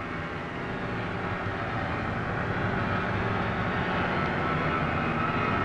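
Steady vehicle running noise, slowly growing louder.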